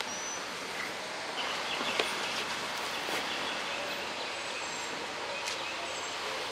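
Steady outdoor background noise, with a few faint short high chirps and a single sharp click about two seconds in.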